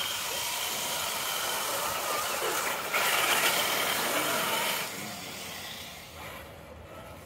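RC crawler trucks driving through shallow snowmelt water, their small electric motors and gears whining over the hiss of splashing water. The splashing is loudest from about three seconds in and drops away shortly before five seconds.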